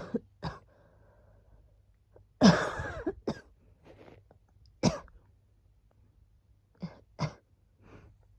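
A woman coughing repeatedly: a string of short, separate coughs with brief pauses between them, the longest and loudest about two and a half seconds in.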